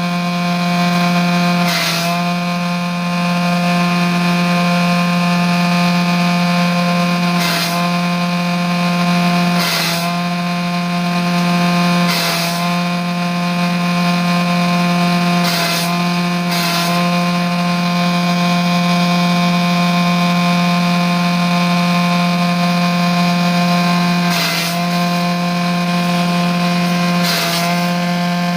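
Grass chopper with a 2 hp electric motor and steel blades running at a steady high speed, giving a constant hum. About eight times, at irregular intervals of a few seconds, a short burst of cutting noise comes with a brief dip in pitch, as the machine takes load from material fed into the blades.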